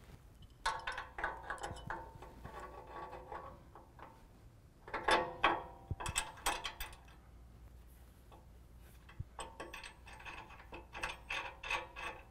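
Ratchet wrench clicking in three runs of rapid clicks as nuts are run onto the steel bumper-bracket bolts.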